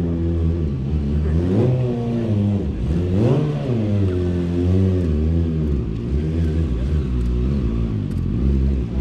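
Stunt motorcycle engine revving, its pitch rising and falling over and over as the rider works the throttle, with sharper climbs about one and a half and three seconds in.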